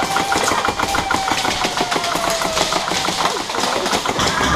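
Airsoft gun firing on full auto: a long, fast, even stream of shots, about ten a second, with a steady whine under the shots that slowly drops in pitch.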